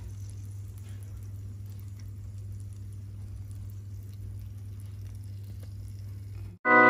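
Quiet room tone with a steady low hum, cut off suddenly near the end as electronic organ music starts.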